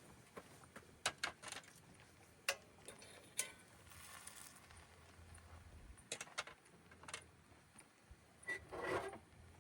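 Scattered light clicks and knocks, with a short soft rustle about four seconds in and a brief denser clatter near the end.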